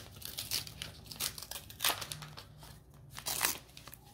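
Pokémon card pack wrappers crinkling as they are torn open and handled, in irregular crackles, the loudest about two seconds and three and a half seconds in.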